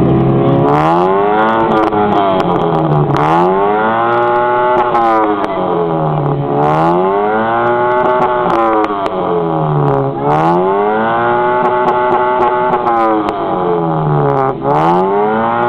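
Car engine revved repeatedly through a loud tuned exhaust. The pitch sweeps up and down in about four cycles, with quick turnarounds near the top.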